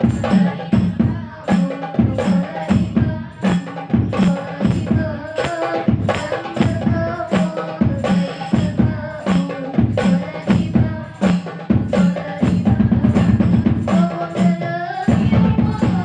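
Instrumental break in a sholawat song: a fast, even percussion rhythm of deep drum thumps and sharp wood-block-like clicks under a sustained melody line, with no singing.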